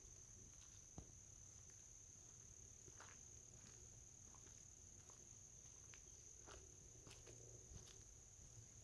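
Faint, steady high-pitched insect chorus, with scattered soft clicks and one sharper tick about a second in.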